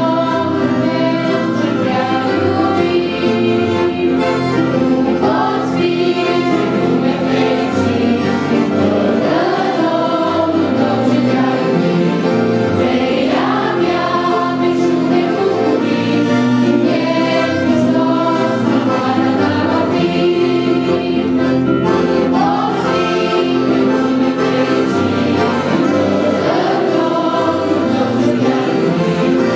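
A group of children and adults singing a Christian hymn together, accompanied by an accordion.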